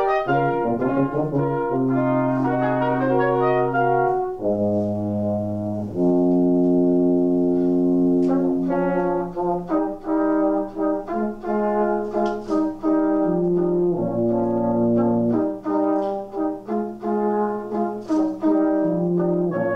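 Brass quartet playing: a quick-moving passage, then long held chords from about four seconds in, then short detached notes from about eight seconds on.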